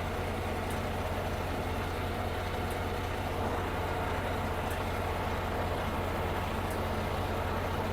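Semi-truck diesel engine idling steadily, with a faint tick about every two seconds.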